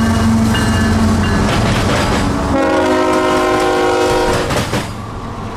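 CSX diesel freight locomotives passing close by at speed with a heavy low engine rumble; about two and a half seconds in, a multi-note locomotive horn chord sounds for about two seconds.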